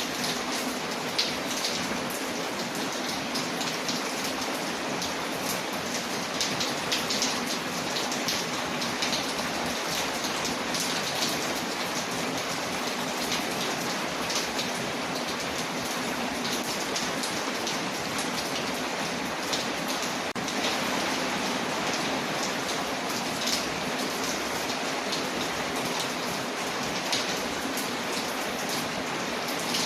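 Steady rain hissing, with many small, sharp ticks and crackles scattered through it.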